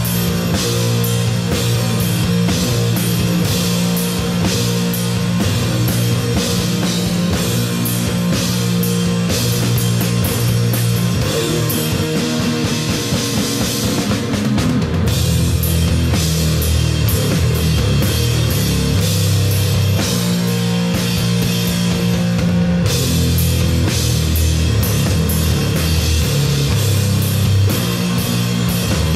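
Rock music with a drum kit and guitar, a steady beat throughout.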